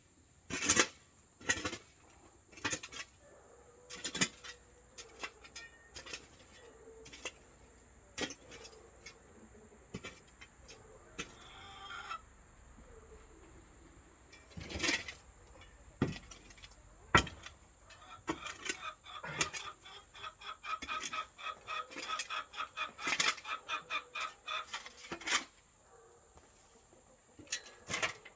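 Chickens clucking, with a long run of rapid clucking calls in the second half, among scattered sharp knocks and clunks.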